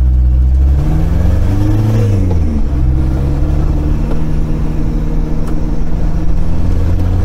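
VW AHU 1.9 TDI four-cylinder diesel engine with no exhaust fitted, heard from inside the van's cab while accelerating. Its note rises about a second in, drops back near three seconds, then holds steady.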